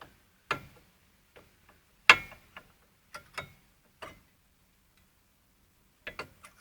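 Steel brake pad clicking and clinking against the caliper bracket and its anti-rattle spring clips as it is worked into place by hand. The sharp metallic clicks are separate, the loudest about two seconds in, with a quick cluster near the end.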